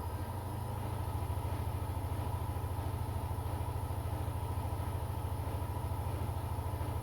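Washing machine running with a steady low motor hum that pulses fast and evenly, growing slightly louder about a second in.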